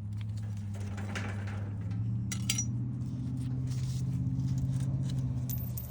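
An electric motor running with a steady low hum that rises slightly in pitch about two seconds in and stops near the end, with a few light metallic clinks.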